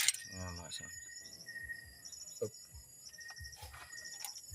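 Crickets chirping in quick, repeating trains of high pulses over a steady high insect tone. A sharp click comes right at the start, followed by a few faint knocks.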